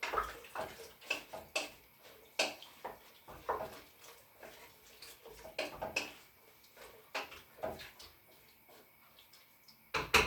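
Irregular clinks and knocks of a utensil against a cooking pot, a few short strikes spread out with gaps between them.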